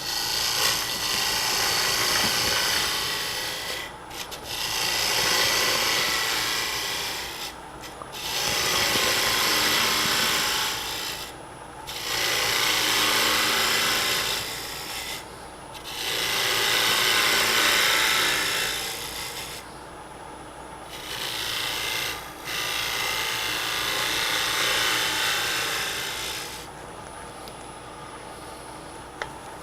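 Turning tool cutting a spinning hard-maple box lid on a wood lathe, in about seven passes of a few seconds each with short breaks between, as the lip is taken down to size. The lathe's steady hum runs under the cuts.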